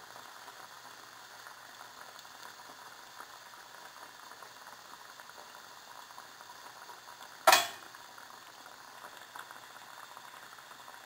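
A spring roll deep-frying in hot oil in a deep saucepan: a steady sizzle of bubbling oil with fine crackling. One sharp knock about seven and a half seconds in is the loudest sound.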